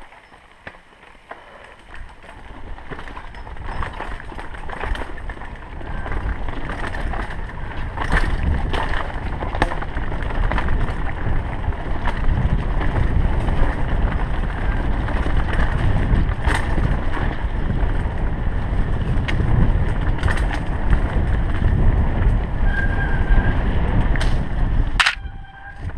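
Mountain bike descending a dirt singletrack, heard from a camera mounted on the handlebars: wind rushing over the microphone and tyres rolling on dirt, with frequent knocks and rattles from the bike over bumps. It grows louder over the first several seconds as speed builds and falls away sharply about a second before the end.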